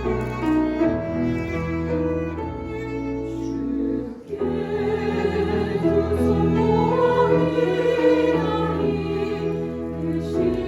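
Instrumental introduction to a church choir anthem, led by bowed strings (violin and cello). The music breaks off briefly about four seconds in, then resumes fuller.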